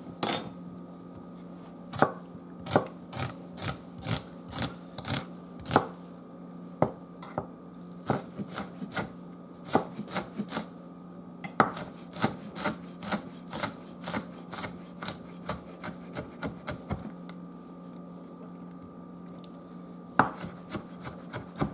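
Kitchen knife chopping onion on a cutting board: a run of sharp, uneven taps, a few a second, that stops for about three seconds near the end and then resumes.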